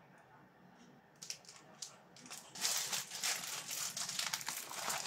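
Clear plastic bag crinkling as it is handled: a few light crackles, then steady, louder crinkling from about halfway in.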